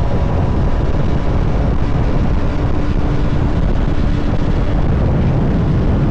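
Steady noise of a moving vehicle, with wind buffeting the microphone and a faint steady engine tone underneath.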